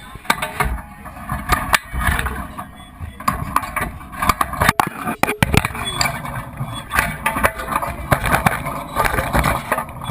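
Sounds of a match in play: scuffing, repeated sharp knocks and players' voices.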